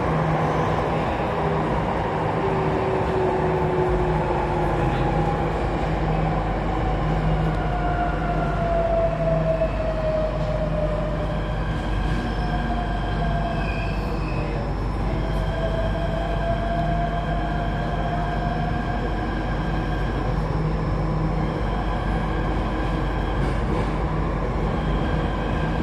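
Inside an MRT Jakarta subway car running between stations: steady rumble and rush of the train, deepening about four seconds in. Over it, a whining tone falls in pitch, then rises again about halfway through.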